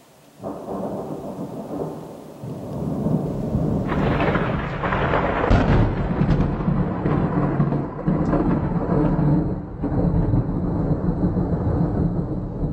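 Long rolling thunder, a continuous deep rumble that builds over the first few seconds and swells about four seconds in.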